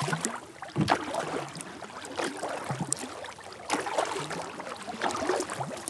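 Kayak paddle strokes: the blades dipping and pulling through the lake water, with splashes and drips off the paddle at irregular intervals of a second or so.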